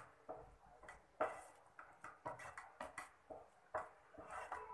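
Wooden spatula stirring thick curry in a frying pan: a dozen or so short, irregular scrapes and knocks against the pan.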